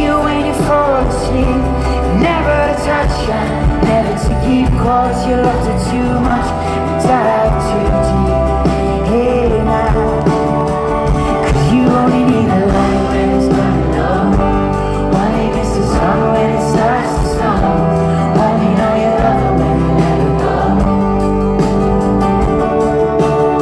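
Live pop-folk song: a man singing over a strummed acoustic guitar, with electric bass and drums in the band.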